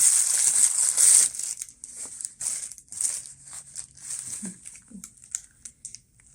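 Crinkly packaging rustling as a swim nappy is handled: a loud rustle for about the first second, then lighter scattered crinkles.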